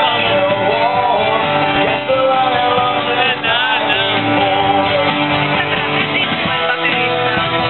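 Live acoustic band music: acoustic guitars strummed with a bass line underneath and a voice singing over them.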